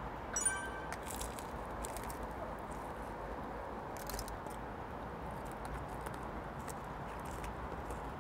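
Quiet eating sounds: small scattered clicks of chopsticks and chewing fried chicken, with a brief light clink about half a second in, over a steady low background hum.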